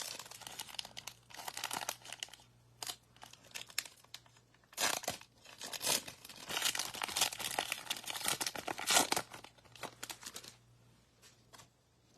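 Foil trading-card pack wrappers being torn open and crinkled by hand, in bursts of crackling; the longest and loudest stretch runs from about five to ten and a half seconds in.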